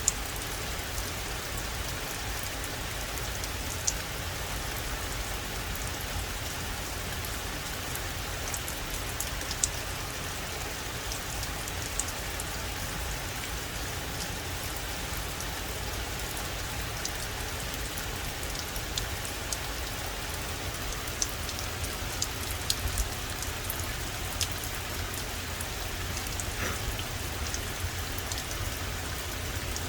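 Steady rain falling on a forest, a continuous hiss with scattered sharp drips of single drops throughout.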